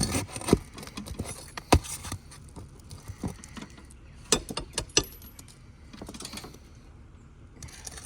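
Irregular clicks, knocks and scrapes of hand tools and shingles being worked during a repair on a 3-tab asphalt shingle roof, loudest in a few sharp knocks about half a second, under two seconds and five seconds in.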